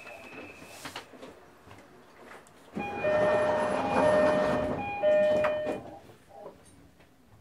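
JR Kyushu 305 series electric train's horn sounded in two blasts from about three seconds in, a long one of nearly two seconds and then a short one, each a loud steady chord of tones.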